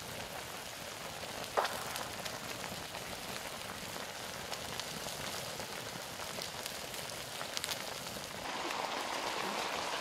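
Chicken thighs in a thick sauce sizzling and bubbling in a wok over a wood fire: a steady fine crackle of many small pops, with one sharper crack about a second and a half in.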